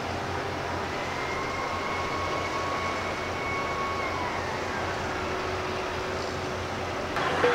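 Steady distant city traffic noise, with a faint engine whine that holds and then falls in pitch about four seconds in, and a brief louder burst of noise near the end.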